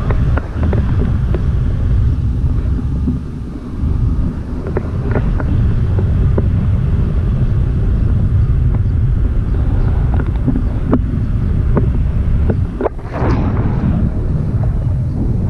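Wind buffeting an action camera's microphone in flight under a paraglider: a steady low rumble with scattered small clicks and knocks.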